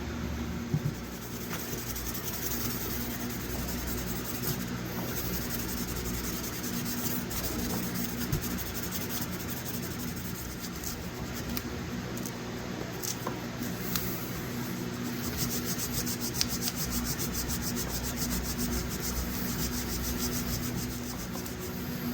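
Hand-sanding a pocket-knife blade with fine 2000-grit sandpaper backed by a wood block: repeated rubbing strokes, quicker and closer together in the later part. A steady low hum runs underneath.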